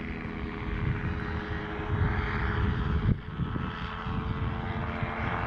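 Gyrocopter's propeller engine running steadily in flight, with wind buffeting the microphone.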